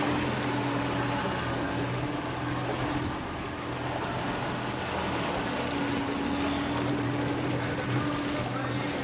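Small motorboat's engine running steadily under way, its steady hum mixed with a broad rushing noise.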